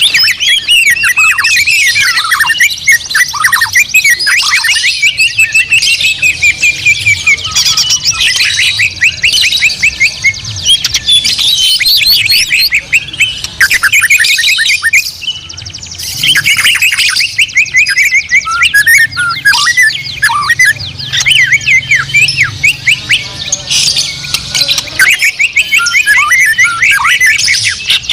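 Several white-rumped shamas (murai batu) singing at once: dense, overlapping loud whistles and fast chattering sweeps, with a brief lull about halfway through.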